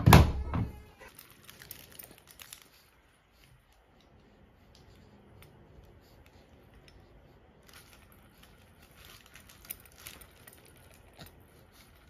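Front-loading washing machine door pushed shut with a heavy thud in the first second. After it come only faint rustling and a few light clicks.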